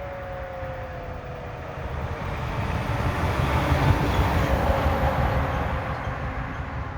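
Outdoor tornado warning siren winding down, its tone sliding lower and fading over the first couple of seconds. A louder rushing rumble then builds and holds.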